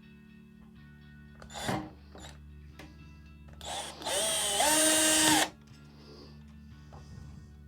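Power drill spinning up and running for about a second and a half, about four seconds in, driving in a screw, after a single knock. Background music plays underneath.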